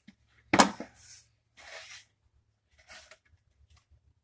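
Handling noises: a sharp knock about half a second in, then a few short bursts of rustling and scraping.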